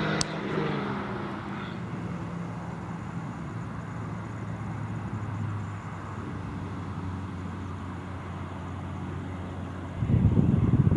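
Lamborghini Countach V12 engine heard driving away, its note falling in pitch and fading into a steady distant hum. About ten seconds in, a loud rough low rumble takes over.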